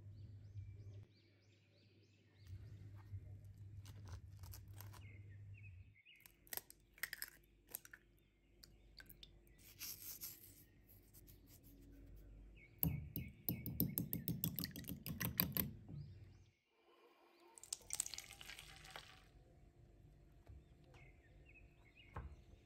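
Eggs being whisked briskly in a white ceramic bowl: a run of rapid clicking strokes lasting about three seconds, the loudest sound here. Scattered clicks and knocks of kitchen handling come before it.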